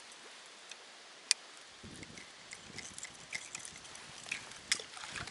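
Scattered sharp clicks and ticks, two of them louder (about a second in and near the end), with wind gusting on the microphone from about two seconds in.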